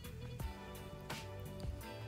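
Background music: steady sustained notes over a regular light beat.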